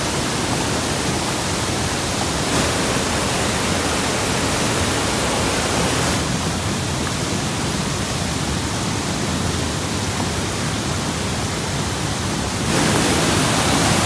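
Floodwater pouring over a concrete river weir, a steady rush of falling water. It gets louder for the last second or so.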